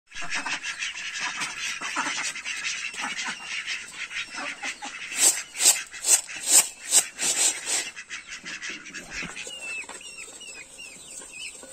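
A flock of domestic ducks quacking, busiest and loudest in a quick run of quacks in the middle. Near the end a chick peeps in short, falling chirps.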